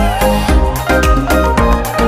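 Background music with a steady beat and strong bass.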